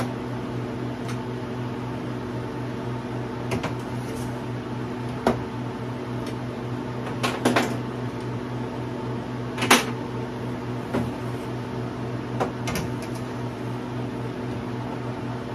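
Harvest Right freeze dryer's refrigeration unit humming steadily while its chamber pre-cools, with scattered knocks and clinks as the metal food trays are handled and slid onto its shelves, the loudest about ten seconds in.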